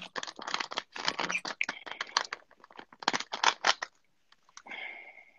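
A rapid run of close clicks and scratches, several a second, stopping about four seconds in, then a short hiss with a faint steady tone near the end.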